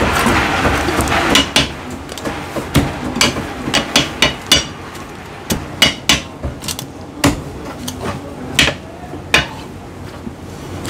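Chinese cleaver chopping through a cooked chicken onto a thick wooden chopping block: a run of sharp, irregular chops and knocks, a few much louder strikes among lighter taps.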